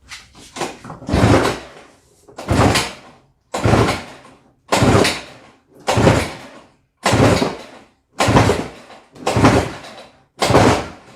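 Recoil starter cord on a Toro Snowmaster 20's two-stroke engine pulled about nine times, a little over a second apart. The engine turns over on each pull but never fires.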